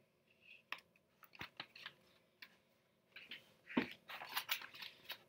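A paperback book being opened and its cover and pages turned: a few faint clicks and paper taps, then louder paper rustling from about three seconds in.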